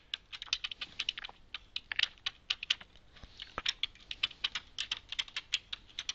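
Typing on a computer keyboard: quick, irregular key clicks, several a second.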